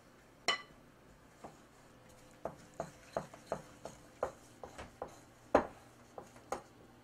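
Wooden spoon stirring thick powdered-sugar frosting in a glass mixing bowl: a run of irregular clicks and knocks, with one louder knock a little past halfway.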